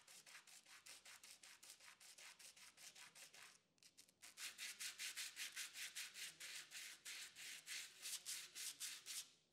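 Small metal pieces cut from a bolt rubbed back and forth by hand on a sheet of sandpaper, a quick scratching stroke about five times a second. The strokes stop briefly a little before halfway, then come back louder.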